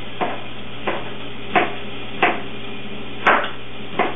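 A knife chopping through a tightly rolled bundle of collard green leaves on a cutting board, cutting them into half-inch strips: six separate chops, roughly one every two-thirds of a second.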